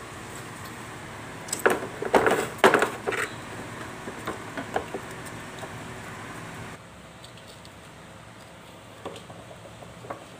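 Handling noise on a split air-conditioner's indoor unit: a quick cluster of hard plastic knocks and rattles about two seconds in, then a few lighter clicks. A steady hiss underneath stops abruptly about seven seconds in.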